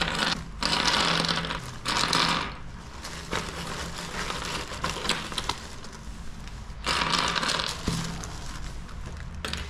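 A thin plastic carrier bag rustling and crinkling in bursts as hands rummage through it, about half a second in, around two seconds in and again around seven seconds in, with small scattered clicks of plastic spray-paint caps being handled.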